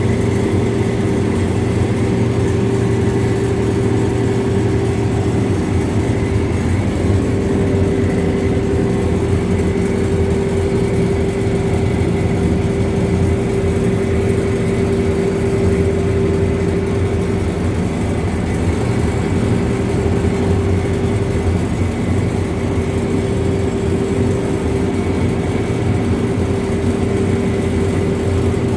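Carpet dust-removal and packaging machine running: a steady mechanical drone with a constant hum tone over a low rumble, unchanging throughout.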